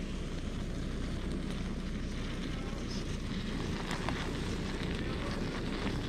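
Small gas canister stove burning with a steady low roar under an aluminium mess tin of stir-fry, with a few light clicks of a metal spoon against the tin.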